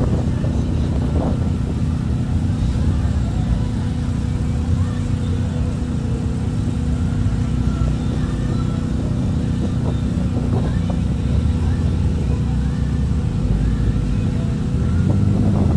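Cars' engines and exhausts running as they drive past one after another, a steady low rumble with no hard revving.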